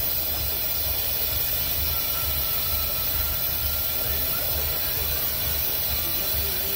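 Handheld long-wand gas torch burning steadily: a loud, even hiss of the flame with a fluttering low roar under it.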